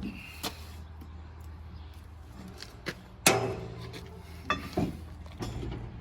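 Several sharp metal clanks and knocks from work on a baler hitch and jack, the loudest about three seconds in with a brief ring, over a low steady hum.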